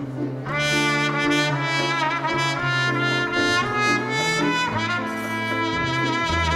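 Dance band playing an instrumental passage of a slow Latin bolero, a trumpet carrying the melody over trombones and bass.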